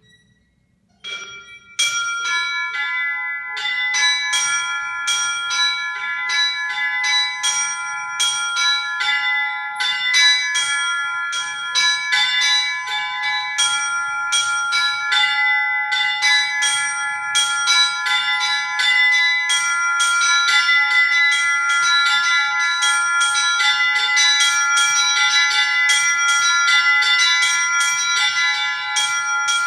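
Set of small zazvonnye treble bells in a Russian belfry rung in a quick, repeating rhythmic pattern, a handful of bells of different pitches struck in turn. The strikes come close together, so the bells' tones overlap and keep ringing. It starts with a single strike about a second in, and the full pattern starts just after.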